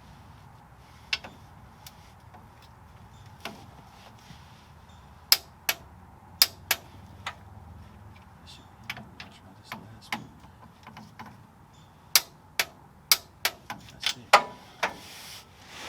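Metal tools and car parts clinking and knocking during rear-axle work: a run of sharp, irregular clicks and clanks, a few of them ringing briefly, busiest around five to seven seconds in and again in the last few seconds.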